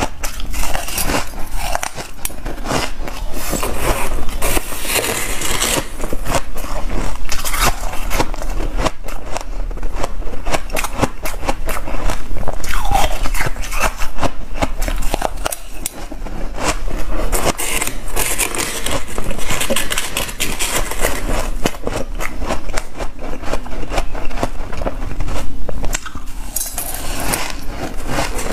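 Close-miked crunching of shaved ice being chewed, a dense, continuous run of crackling crunches, with the plastic spoon scraping through the shaved ice in the bowl.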